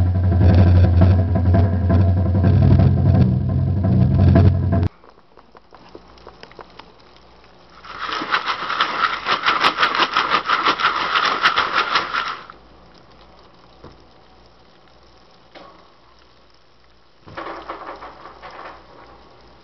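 Music from a 45 rpm single playing on a record changer, cut off abruptly about five seconds in. Later comes about four seconds of loud, dense crackling noise, and a shorter burst of it near the end.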